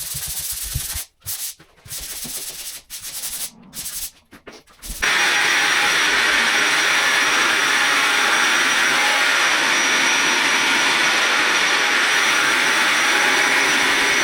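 Sanding the dried plaster filler on a wall repair: short scratchy rubbing strokes in choppy bursts. About five seconds in, a steady loud machine hiss with a faint high whine takes over, from a power sander or dust extractor working the plaster.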